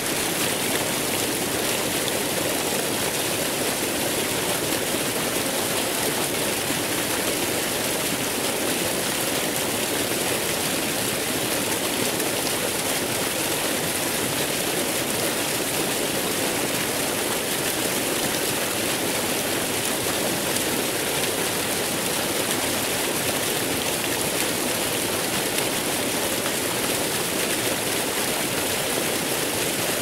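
Several waterfall streams pouring down a cliff into a pool, a steady, even rush of falling and splashing water.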